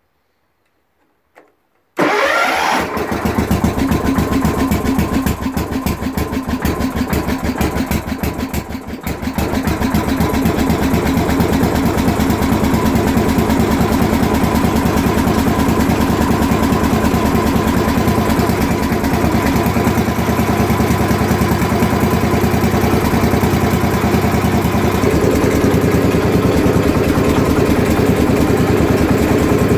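Wheel Horse Raider 10 garden tractor engine cold-started with the key: after a faint click it fires and catches about two seconds in, dips briefly at about eight seconds, then runs steadily.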